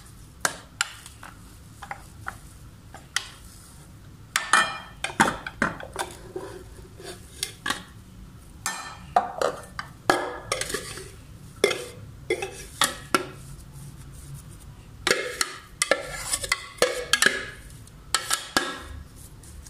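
A white plastic spatula scraping minced mutton kofta mixture out of a food chopper's plastic bowl into a glass bowl, with irregular knocks and scrapes of plastic against the bowl rims.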